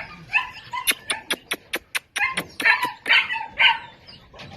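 A toy Pomeranian yapping in short, high-pitched barks, several in quick succession. About a second in, there is a rapid run of about nine sharp clicks lasting just over a second.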